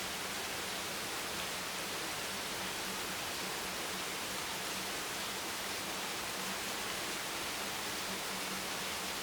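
Heavy rain hammering down, a steady even hiss with no single drops standing out.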